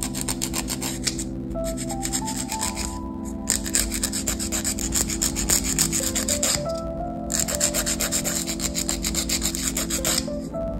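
Coarse 80/80-grit half-moon nail file scraped rapidly back and forth across fingernail tips, in three runs of quick strokes with short pauses between. Soft background music plays underneath.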